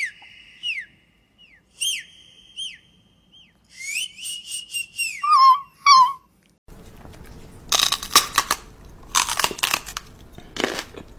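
Whistling in a series of short held high notes, several dropping off in pitch at the end, with a few lower wavering notes after about five seconds. After a cut about two-thirds of the way in, a run of short, sharp noises follows.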